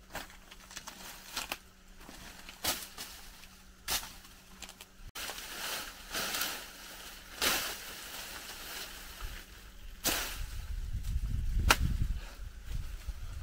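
A series of sharp knocks or chopping strikes, one every second or two and unevenly spaced, with a low rumble rising near the end.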